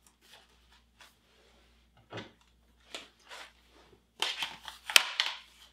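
Rustling and light knocks of a Fox Proframe full-face helmet being pulled on, then 100% Armega goggles being stretched over it and settled onto the face, with a sharp click about five seconds in.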